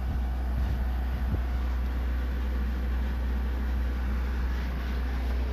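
Air-conditioning unit running with its compressor on: a steady low hum with the fan's air noise over it.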